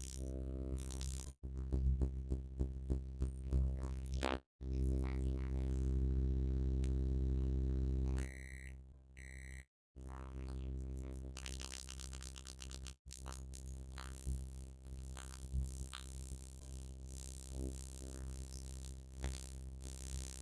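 Microwave oven running with a steady electrical hum, cooking a microwavable macaroni and cheese cup. About eight seconds in the hum stops and a few short high beeps sound, signalling the end of the cooking cycle; quieter clicks and handling follow.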